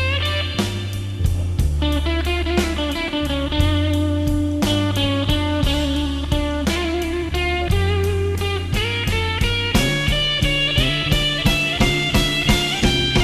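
Instrumental blues-rock music: electric guitar over a steady drum beat, the beat quickening near the end.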